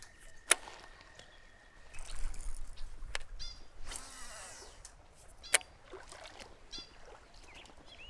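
A baitcasting rod and reel being handled through a cast, with two sharp clicks, one about half a second in and one about five and a half seconds in, and a few fainter ticks. Short bursts of hiss and faint bird chirps sound in between.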